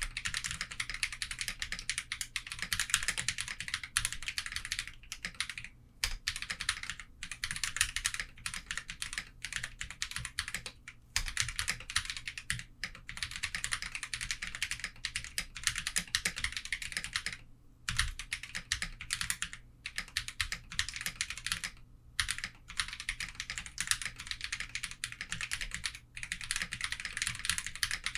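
Portico mechanical keyboard with Holy Panda tactile switches being typed on: a fast, dense stream of keystrokes in runs of a few seconds, broken by short pauses.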